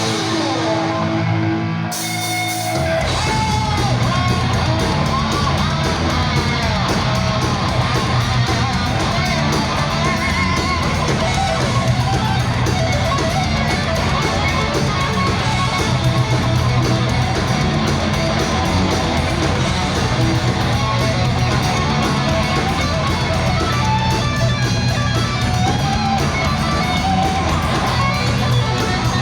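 Heavy metal band playing: electric guitar alone at first, then drums and bass come in with the full band about three seconds in, with bending lead-guitar lines over the top.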